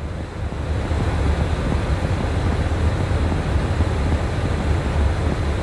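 Airbus airliner's engines running at idle, heard inside the cabin as a steady low rumble with a broad hiss that grows a little louder about a second in.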